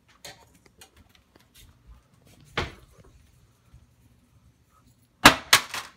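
A fidget spinner being handled and tossed at a kitchen counter: faint light clicks, one knock about two and a half seconds in, and a quick run of loud clatters near the end as it hits the counter.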